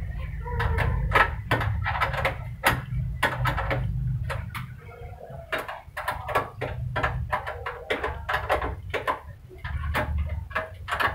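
Spanner tightening the bolts that hold an air-conditioner outdoor unit on its steel wall bracket: a run of irregular metallic clicks and clanks, with a steady low rumble underneath.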